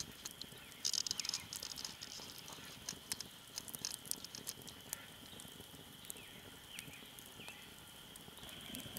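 Wood campfire crackling, with irregular sharp snaps and pops that come thickest about a second in. A faint steady high-pitched tone runs underneath.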